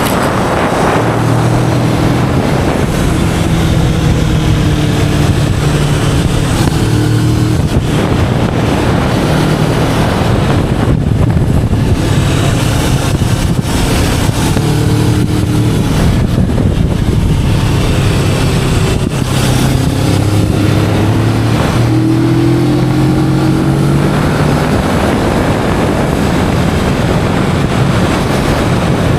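Kawasaki Vulcan S 650's parallel-twin engine running through its stock exhaust while riding, its pitch climbing and dropping several times with throttle and speed. Heavy wind buffeting on the action camera's built-in microphone.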